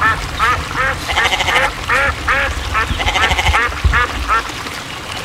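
Ducks quacking repeatedly, several short calls a second and sometimes overlapping, over a low rumble that fades near the end.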